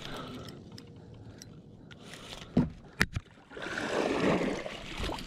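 Water splashing as a hooked largemouth bass thrashes at the surface in lily pads, starting about three and a half seconds in and lasting over a second. A couple of sharp knocks come just before it.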